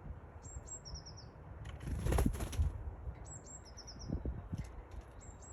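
A small bird sings a high, thin phrase twice, about three seconds apart: two sharp notes, then a quick short trill. About two seconds in there is a brief loud rushing flutter.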